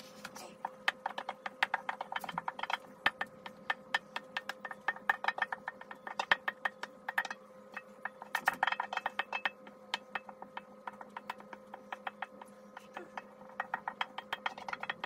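Utensil scraping and clicking against a bowl and cake pans as thick Christmas cake batter is poured out. Rapid, irregular clicks and knocks run throughout, over a steady faint hum.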